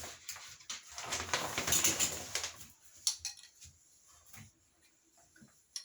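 Rustling and light clattering as shower curtain rings are handled, busy for the first two and a half seconds, then only a few faint clicks.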